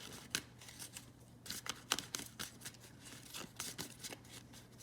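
A deck of angel oracle cards being shuffled by hand: quick, irregular papery clicks and rustles, the cards hard to handle in small hands.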